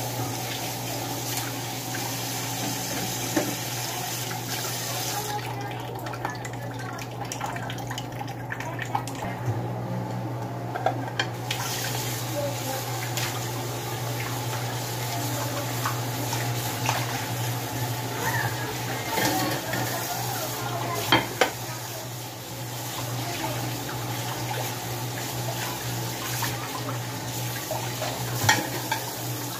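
Kitchen tap running steadily into a sink while dishes are washed and rinsed, with occasional sharp knocks and clinks of plates and plastic bowls. A steady low hum runs underneath.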